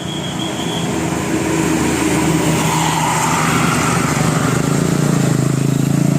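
A road vehicle's engine running with a steady low drone, growing louder as it draws near.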